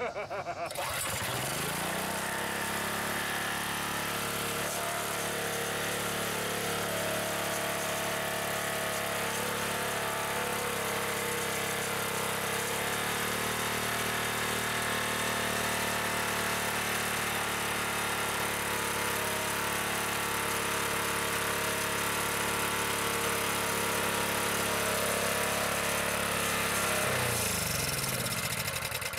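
Small 212 cc single-cylinder OHV engine fitted with a GEET fuel processor, starting and then running steadily. Its speed shifts slightly about twelve seconds in, and near the end it surges briefly and dies away.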